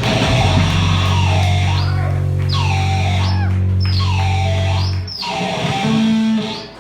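Live rock band playing, with electric guitar over a held low bass note that stops about five seconds in and a short final note after it: the close of a song.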